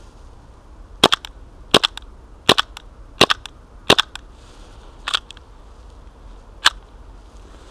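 KWA H&K Mk23 SOCOM gas blowback airsoft pistol firing seven shots, each a sharp double snap. The first four come about 0.7 s apart, the rest more slowly. It is running on propane in sub-zero cold, with barely enough gas to cycle the slide, and is no longer feeding BBs.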